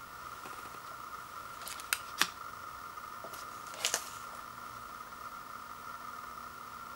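An instant soup cup being picked up off a wooden floor and turned in the hands, giving two sharp clicks about two seconds in and another quick pair near four seconds, over a steady high hum.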